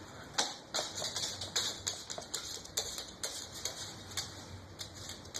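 Irregular light clicks and taps, a few a second, from an eclectus parrot moving about.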